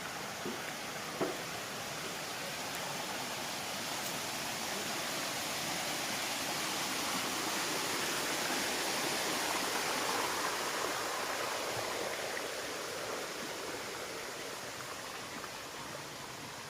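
Steady rush of flowing water, swelling gradually to its loudest about two-thirds of the way through and then easing off.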